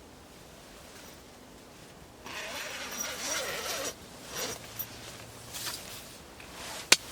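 Rustling and scraping of tent fabric and gear being handled, beginning about two seconds in after a faint steady hiss, with a sharp click near the end.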